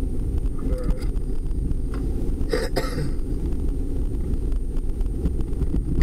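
Steady low rumble of road and engine noise inside a car's cabin while it drives on a snow-covered road, with a brief sharp noise about two and a half seconds in.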